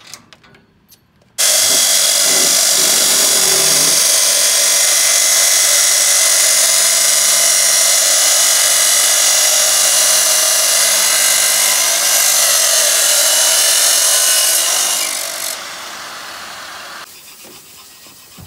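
Abrasive cut-off saw cutting through steel stock: starts suddenly with a loud, steady, high grinding whine that holds for about thirteen seconds, then drops away.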